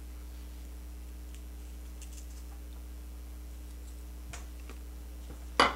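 A steady low electrical hum of room tone with faint scattered small ticks, then one sharp knock near the end.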